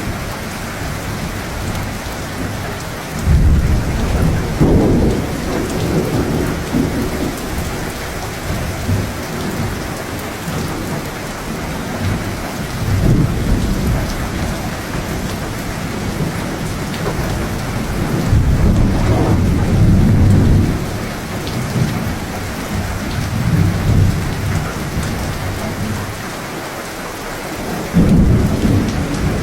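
Thunderstorm: steady rain falling, with low rolling thunder rumbling up several times. The longest and loudest roll comes about two-thirds of the way through, and another rises near the end.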